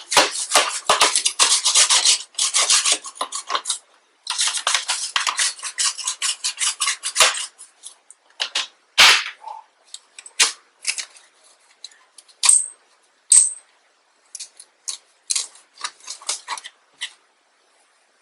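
Bristle brush scrubbing a PS4's plastic casing to loosen dust, with rapid scratching strokes for about seven seconds. After that come scattered shorter scrapes and light plastic clicks, with two brief high squeaks.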